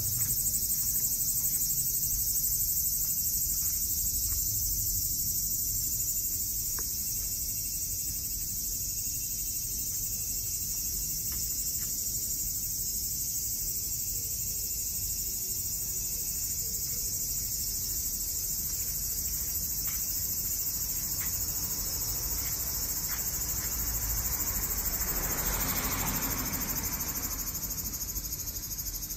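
A steady, high-pitched drone of insects calling, over a low rumble. About 25 seconds in, a broader rushing noise swells briefly and fades.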